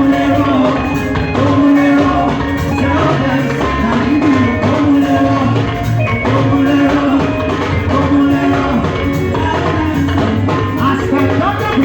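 Upbeat live band music with drums and percussion, a dance groove.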